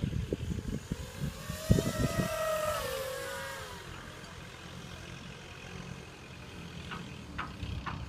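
250-size FPV racing quadcopter flying past, its motors giving a whine that rises in pitch and then falls away between about one and three and a half seconds in. Low buffeting on the microphone in the first two seconds; fainter after that, with a few short high ticks near the end.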